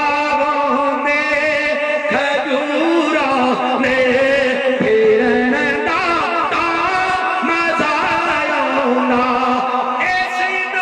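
A man singing a Punjabi naat: long, held notes in a wavering, ornamented melody.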